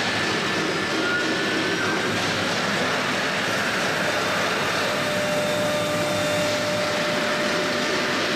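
Three-spindle CNC engraving router running: a steady, even machine noise with faint whining tones that come and go.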